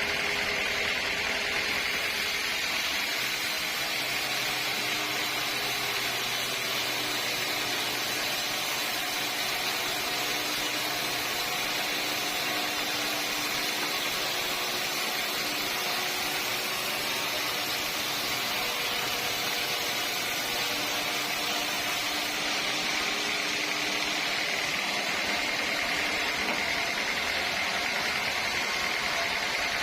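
Sawmill machinery running steadily: a constant mechanical whir with a few faint steady tones that shift slightly in pitch now and then.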